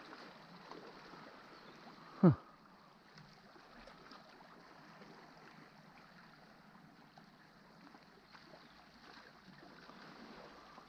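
Sea water washing gently against shore rocks, a soft steady wash. About two seconds in comes one quick, loud whoosh that drops sharply in pitch.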